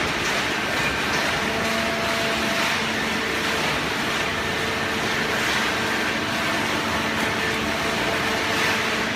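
Fully automatic hydraulic paper baler running: a steady mechanical noise with a faint steady hum.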